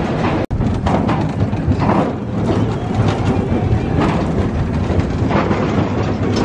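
Big Thunder Mountain Railroad mine-train roller coaster running along its track: a loud, steady rumble and rattle of the cars, heard from on board. The sound drops out for an instant about half a second in.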